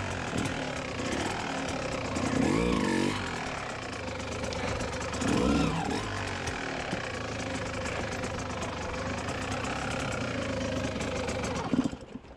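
Kawasaki KX125's 125cc single-cylinder two-stroke engine running at low revs as the dirt bike crawls over rocks, with two brief blips of throttle, about two and a half and five and a half seconds in. The engine cuts off near the end.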